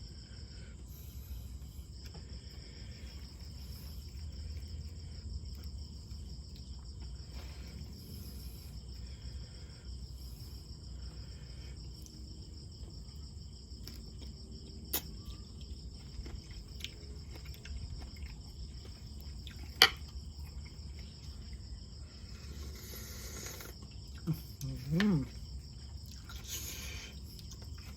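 Steady high-pitched insect chorus, a continuous pulsing trill, over a low rumble. A sharp click sounds about two-thirds of the way through, and a short sliding pitched sound comes near the end.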